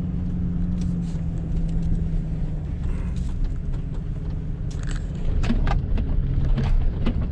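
Steady engine and tyre rumble inside the cab of a 3/4-ton Chevy pickup driving on a dirt road in two-wheel drive. Loose things in the cab rattle and click over the bumps, most about five seconds in.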